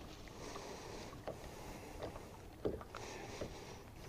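Water lapping against a bass boat's hull over a steady wash of wind, with a few light knocks about a second apart.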